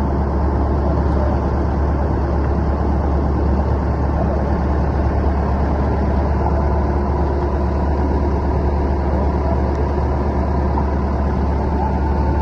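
Steady, unchanging low drone of a running engine, with a few faint steady tones above it.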